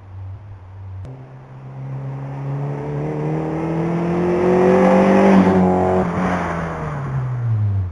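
Mazda Miata's inline-four engine through a newly fitted exhaust system. A steady low note gives way about a second in to revs climbing smoothly for several seconds, then falling back toward idle near the end.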